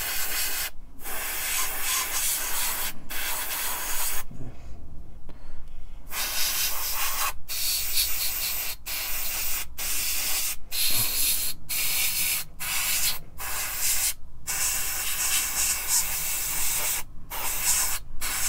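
Gravity-feed airbrush spraying red paint in short bursts: a steady air hiss that breaks off briefly about a dozen times, with one longer pause of about two seconds around four seconds in.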